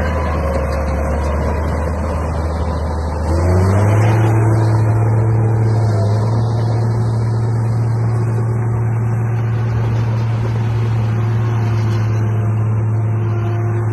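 Bulldozer's diesel engine running with a steady low drone that steps up in speed and loudness about three and a half seconds in, then holds at the higher speed.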